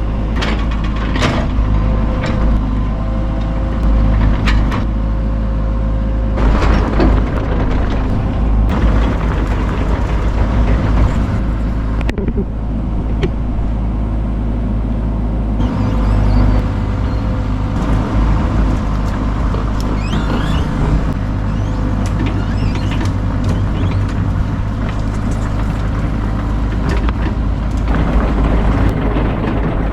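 Heavy machinery engine running steadily under load while working on a dead tree, with a few sharp cracks or knocks.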